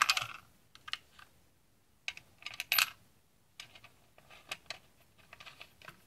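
Steel washer and nut clicking and clinking as they are fitted by hand onto a threaded rod through a plastic cap: scattered small sharp clicks, with a brief high metallic ring just under three seconds in.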